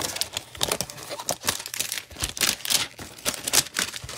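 Gloved hands handling and tearing into a cardboard trading-card hanger box: a run of quick, irregular crinkling and tearing crackles.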